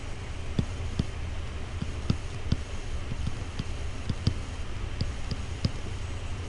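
Stylus tapping and clicking on a tablet PC screen during handwriting: irregular sharp clicks, about two a second, over a steady low hum.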